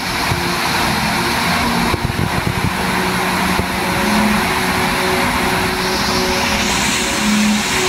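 Steady loud rushing noise, like a machine or fan running, with faint pitched tones underneath; the hiss brightens near the end.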